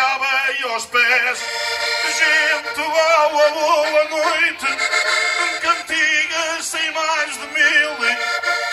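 Cantares ao desafio: a man sings a verse into a microphone over a PA, accompanied by two accordions holding steady chords beneath the wavering vocal line.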